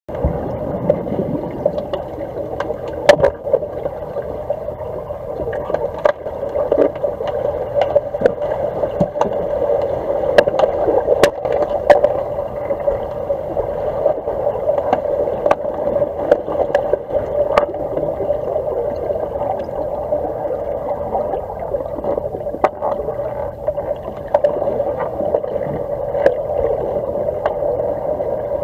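Underwater sound of a swimming pool picked up by a submerged camera: a steady, muffled rushing with scattered sharp clicks and knocks, a few of them loud.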